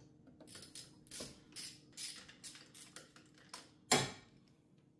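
Hand ratchet on a 5/8 spark-plug socket clicking in short strokes, two or three clicks a second, as an old spark plug is loosened in the engine. One louder metal clack about four seconds in.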